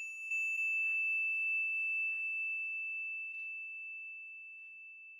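A single high, bell-like chime that rings on in a long, slow fade, with a few faint soft ticks at about one, two and three seconds in.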